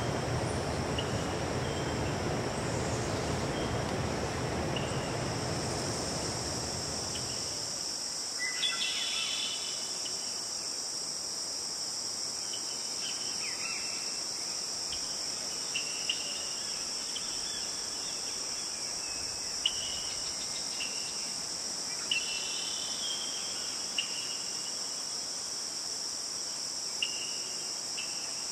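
A steady high-pitched insect chorus with short, scattered bird chirps over it. For the first several seconds a low rushing noise runs underneath it, then cuts off abruptly about seven seconds in.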